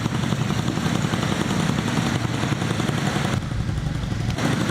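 An engine running steadily, a low drone with a rapid pulse.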